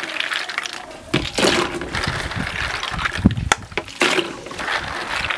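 Water sloshing and snail shells clicking against one another as a basin of river snails is washed by hand in a plastic tub.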